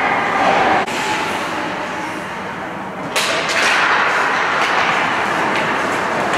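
Ice hockey play on a rink: a sharp crack of stick on puck or ice about three seconds in as play restarts from a faceoff, then skate blades scraping the ice with a few light stick clicks.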